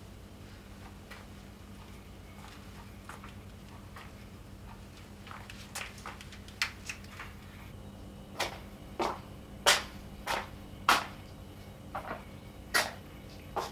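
Footsteps on a hard floor: sharp taps, sparse at first, then about every half second and louder through the second half, over a steady low hum.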